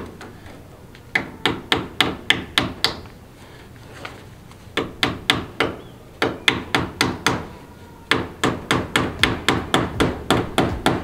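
Hammer driving staples through half-inch hardware cloth into the wooden corner of a chicken coop. Four runs of quick strikes, about three or four a second, with short pauses between them.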